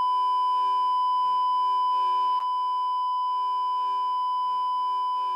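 Steady high test-card beep, the continuous pure tone that goes with TV colour bars, with a weaker lower tone held underneath.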